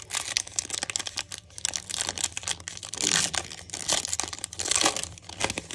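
Shiny foil wrapper of an Upper Deck hockey card pack being torn open and crinkled off the cards by hand: a dense run of crackles and rustles, loudest about three seconds in and again near five seconds.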